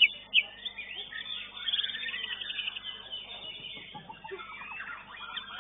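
Caged contest songbird singing: sharp high chirps and quick rapid-note phrases, with the loudest calls right at the start and about half a second in.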